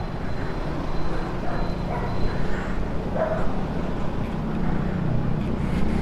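Street dogs giving a few short barks and yips, over a steady low rumble.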